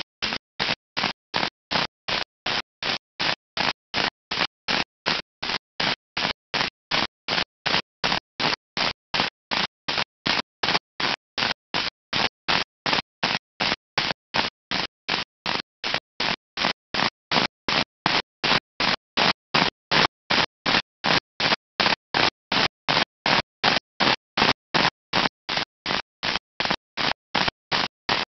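Audio stuttering on and off about twice a second in a steady, machine-even rhythm: short bursts of sound with dead silence between. This is a live-stream dropout glitch chopping up the festival sound.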